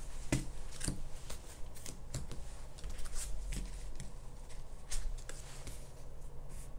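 Oracle cards being handled and shuffled: a quick, irregular run of card flicks and taps.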